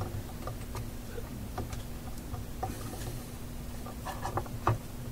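Scattered small clicks and taps of clips being fitted onto the wire end on an RF coil form, with a small cluster of clicks near the end.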